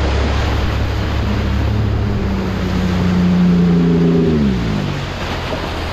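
Outboard motor pushing an aluminium dinghy at speed, with water rushing and splashing along the hull. The motor's note drops about four seconds in.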